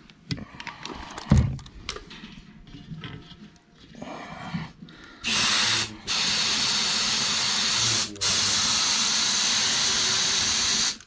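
Compressed air hissing steadily into a tractor tyre through an air line, inflating it to seat the bead on the rim, in three long spells with two short breaks. A few metal knocks and clanks come before it, in the first half.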